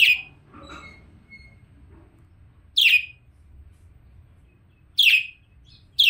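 Caged budgerigars calling: short, sharp chirps that fall in pitch, one at the start, one about three seconds in and one near the end, with faint soft twittering between them.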